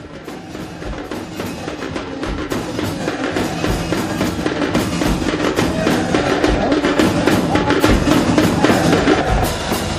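Drum-led music fading in: a deep bass drum struck at an even pace, about once every second and a half, under quicker, lighter percussion strokes.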